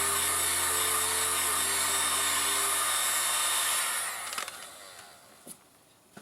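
Heat gun blowing hot air onto a plastic bumper, a steady fan hiss with a low hum, dying away about four seconds in.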